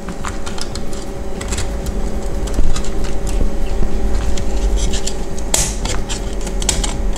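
Light, irregular clicks and taps of small plastic parts of a car instrument cluster being handled and seated, with one sharper click a little before the middle and a short scrape later on, over a steady background hum.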